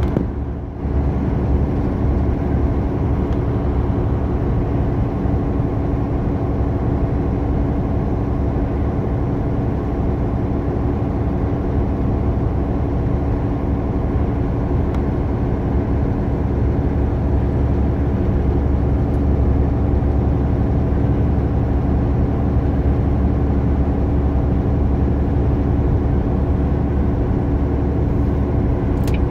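Engine and road noise inside a vehicle's cab at highway speed: a steady low drone with a constant hum, dipping briefly about a second in.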